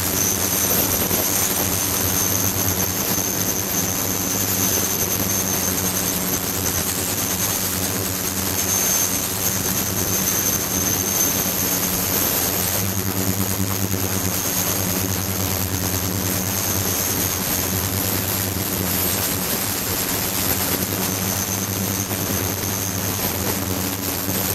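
Ultrasonic cleaning tank running with a glass bottle standing in the agitated bath: a steady low hum and a high-pitched whine over an even hiss of churning, cavitating water.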